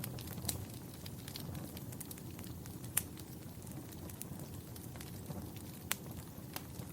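Wood fire crackling in a fireplace: a steady low rumble of flames with scattered sharp pops and snaps, the loudest about three seconds in and again near the end.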